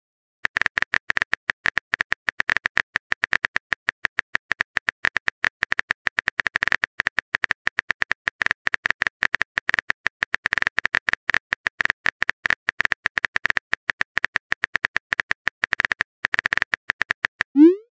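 Rapid phone-keyboard key clicks as a chat message is typed out, a fast, uneven stream of short ticks. They start about half a second in, pause briefly near the end, then run on and stop just before the end.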